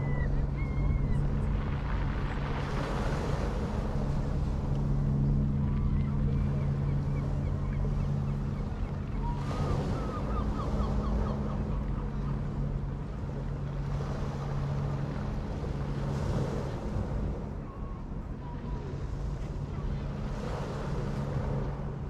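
Sea waves washing onto the shore, swelling and falling back every few seconds, with wind on the microphone. A steady low mechanical hum runs underneath, and a few short bird calls come through at the start, about ten seconds in and near the end.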